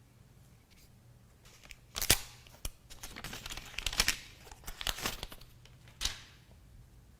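Smartphone retail packaging being torn open and handled: a sharp click about two seconds in, a stretch of rustling, and another click near the end.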